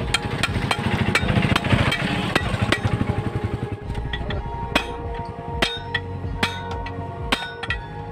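A nearby engine runs with a fast, pulsing rumble for the first few seconds and then fades back. Sharp metal-on-metal clinks follow about once a second as a steel rod is worked against an engine van's axle shaft.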